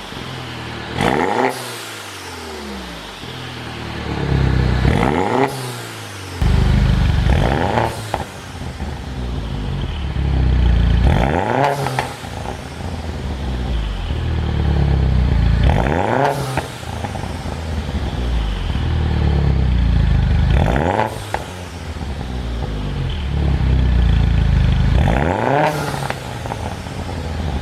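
2014 Mini Coupe John Cooper Works' turbocharged 1.6-litre four-cylinder engine revved again and again, each rev climbing and dropping back, about every three to five seconds. The exhaust is tuned to pop and crackle as the revs fall.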